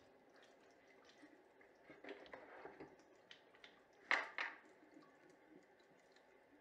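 Faint small clicks and taps of toiletries being handled at a bathroom sink, with a louder double knock about four seconds in.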